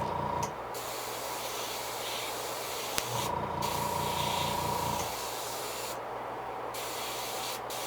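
Airbrush spraying paint in a steady hiss, broken by three short pauses as the trigger is let off. A low pulsing hum comes in and out twice.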